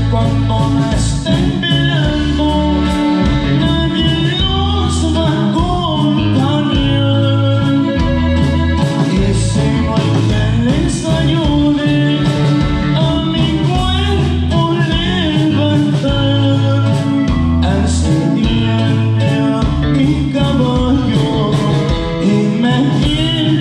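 Norteño band playing a song live: electric bass, drum kit and acoustic guitar, with singing over them.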